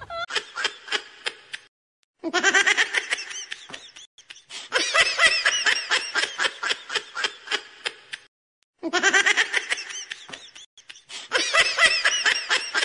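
Laughter in quick, pulsing runs of 'ha' sounds. It is a short laughing clip that plays, breaks off for half a second, and plays again.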